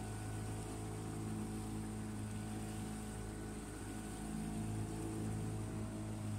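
Boat engine running steadily underway, a low even hum with a light hiss of water and air.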